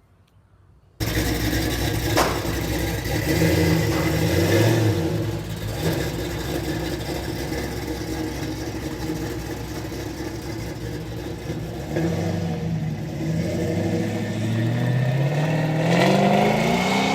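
The Oldsmobile Cutlass's LS V8 running now that its fuel pump circuit is fixed. It comes in suddenly about a second in, with the revs stepping up and down and climbing near the end.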